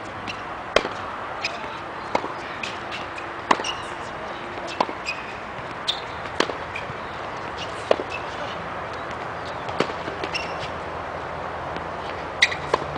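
Tennis ball being struck by a racket and bouncing on a hard court during a rally: sharp pops about once a second at uneven spacing, some louder than others, over a steady outdoor background noise.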